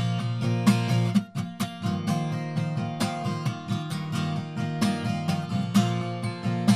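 Steel-string acoustic guitar strummed in a steady rhythm, an instrumental passage with no singing.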